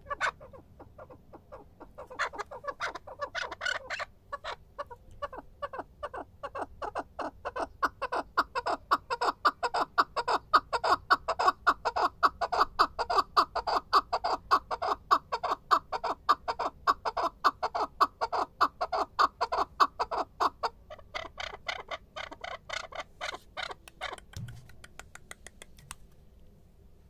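Chukar partridge giving its rally call: a long run of rapid, evenly repeated clucking notes that builds to a loud steady series, then thins out and stops near the end.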